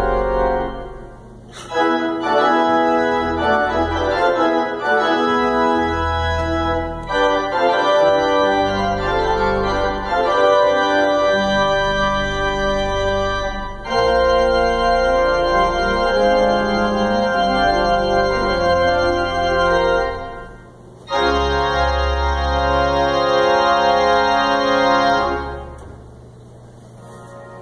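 Organ playing loud sustained chords over a deep pedal bass, with brief breaks about a second in and about twenty seconds in, and dying away into the room's echo near the end.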